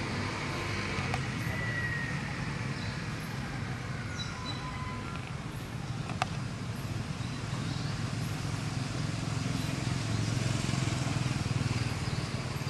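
Steady low rumble of distant road traffic, louder near the end, with a few faint short high chirps over it.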